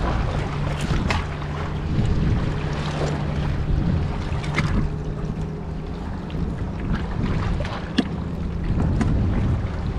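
Wind rumbling on the microphone, with scattered clicks and clatter of oyster shells and rocks being handled. A sharp plastic knock about eight seconds in comes from the crab bucket's lid being handled.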